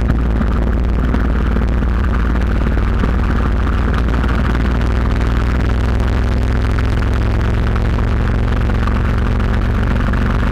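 Motovox mini bike's small engine running at a steady throttle, heard from a camera on the moving bike, under a constant hiss of wind and road noise.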